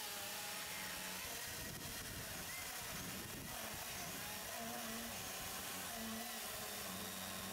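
Milwaukee Fuel battery-powered chainsaw running under load as its chain cuts through a stack of softwood 4x4 lumber, heard faintly and steadily. It is a low-geared saw with slow chain speed.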